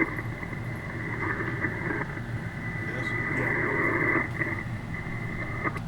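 Amateur HF radio receiver's speaker giving out band noise and static with a steady high-pitched whistle on the channel, which cuts off just before the end.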